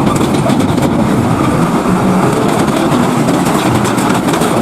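Heavy vehicle running at speed, a loud steady noise of engine and road with a strong low end, laid in as the sound of a container truck.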